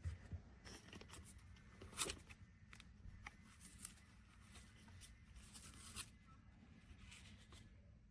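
Faint handling noises: scattered soft clicks and rustles over a low steady hum, with slightly louder clicks about two seconds and six seconds in.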